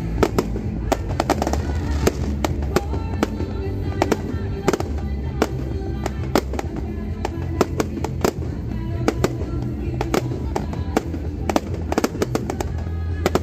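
Aerial fireworks bursting: many sharp bangs and crackles at irregular intervals, over music with a strong low bass.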